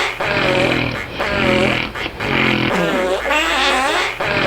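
A person snoring with a fart-like flapping rasp, about one breath every two seconds. Each breath is a short low buzz followed by a wavering, gliding flutter.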